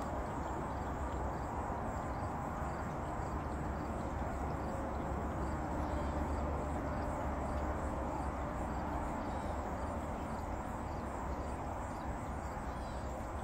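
Steady outdoor background noise with a low rumble on the microphone, and faint, evenly repeating high pulses.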